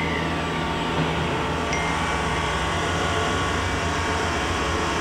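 Variable-speed spindle of a Southwestern Industries TRAK FHM5 CNC bed mill running steadily at 2500 RPM, an even hum with a steady whine, running smoothly.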